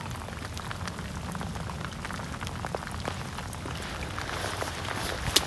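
Steady rain falling, many small drop ticks hitting mud and a water-filled swale trench over a low rumble, with one sharp click near the end.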